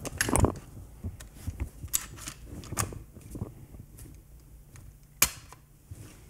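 Remington 870 pump-action shotgun being reassembled by hand: scattered clicks and knocks of the barrel, forend and receiver being handled and fitted together, with a sharp click about five seconds in.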